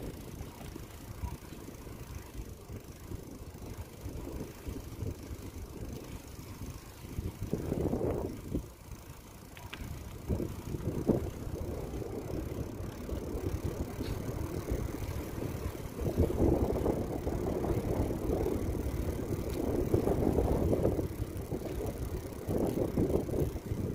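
Bicycle rolling along a paved lane: low rolling noise and rattle with rushing air that swells louder for a few seconds at a time, and a couple of short knocks a little before the middle.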